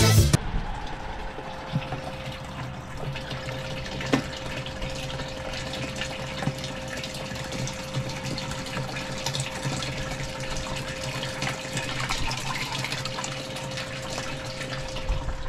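Live-bait tank's water pump running, water splashing and bubbling with a steady hum, and a single sharp click about four seconds in.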